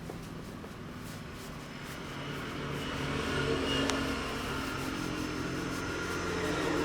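Street traffic: a motor vehicle engine running with a steady low hum, growing louder about halfway through.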